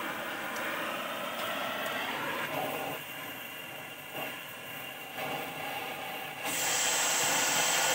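LPG-oxygen cutting torch hissing as its flame plays on steel; near the end the hiss turns suddenly louder and sharper, as the cutting-oxygen jet opens to cut.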